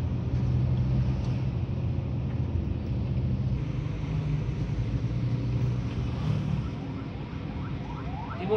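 Mercedes-Benz intercity bus diesel engine running on the road, heard from inside the cab. Its pitch steps up and down a little a few times. A short burst of rising tones comes right at the end.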